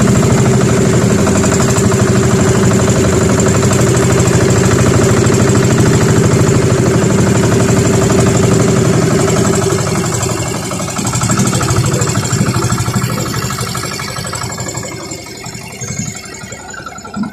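Engine of a motorized outrigger boat (bangka) running steadily with a fast even pulse, then dropping to a lower, quieter level from about ten seconds in.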